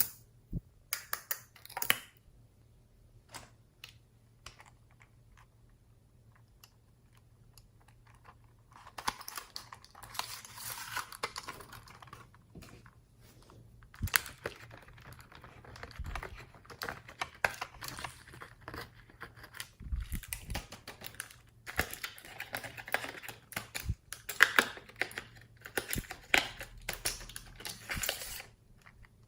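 Slime being squished and mixed by hand, making sticky clicks and crackles. The clicks are scattered at first, then come in longer, dense stretches of crackling.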